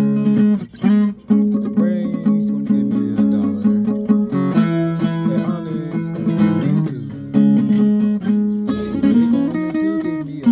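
Acoustic guitar played unaccompanied: strummed and picked chords, with a few notes sliding in pitch.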